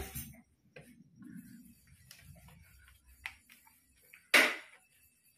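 Steel rolling pin rolling out a stuffed flatbread on a cloth-lined steel plate: a soft low rumble of rolling for the first few seconds, and a few sharp metallic clicks, the loudest about four seconds in.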